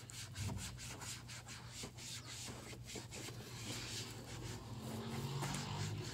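Applicator pad rubbed by a gloved hand over a dried-out plastic motorcycle body panel, working revitalizing paste in with quick back-and-forth scrubbing strokes, over a steady low hum.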